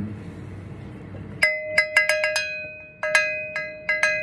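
A small metal bell rung in quick bursts from about a second and a half in, every strike giving the same clear ringing notes that carry on between strikes. It is rung at the consecration of the Eucharistic Gifts, just after the epiclesis.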